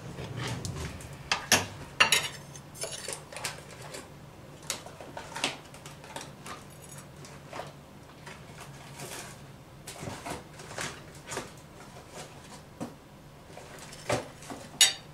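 Metal spoon clinking and tapping against a glass dessert cup and a stainless steel pot as pudding and biscuit crumbs are spooned in: a scattered series of sharp clinks, the loudest about two seconds in and near the end.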